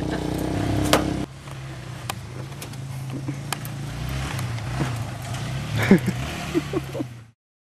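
Scattered clicks and knocks from hands working at the front body panel and wheel of an EZGO golf cart, over a steady low hum; the loudest knock comes about six seconds in, with a few short squeaks around it. The sound cuts off abruptly near the end.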